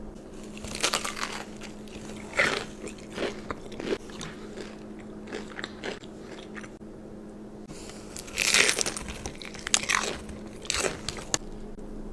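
Close-miked bites into crunchy food with chewing in between. Loud crunches come about a second in, several more between two and four seconds, and the loudest cluster between about eight and eleven seconds. A faint steady hum runs underneath.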